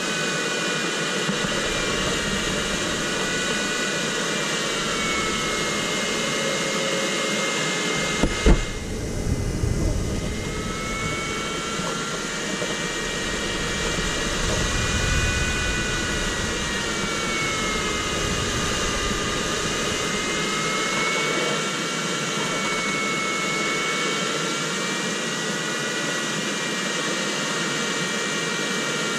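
Steady airflow hiss in the cockpit of an ultralight sailplane in flight, with the variometer's audio tone gliding slowly up and down in pitch as the lift changes. About eight seconds in, a sharp knock is followed by a couple of seconds of low rumbling.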